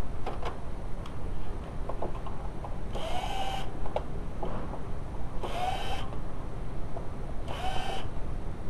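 Cordless electric screwdriver spinning in three short runs of about half a second each, its motor whine rising slightly in pitch each time, as it backs out screws. Small clicks of handling come in between.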